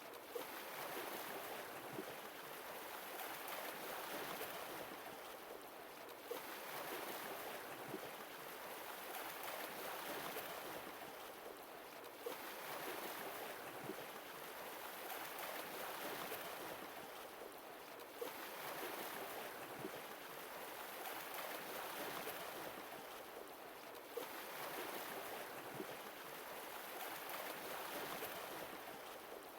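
Sea waves washing in and drawing back, each wave swelling and fading over about six seconds, with a brief sharp sound as each one begins.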